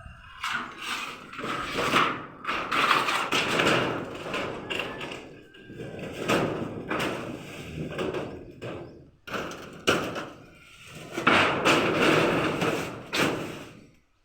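Hand work on a house's woodwork: a string of thumps and knocks mixed with rasping, scraping strokes about a second long, stopping abruptly near the end.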